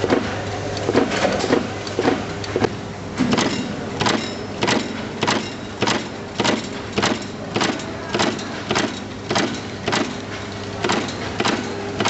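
Motor-driven wire-terminal crimping machine clacking as its applicator crimps terminals onto wire ends, one sharp stroke per crimp, over a steady motor hum. The strokes come irregularly at first, then settle from about four seconds in into a fast even rhythm of nearly two a second.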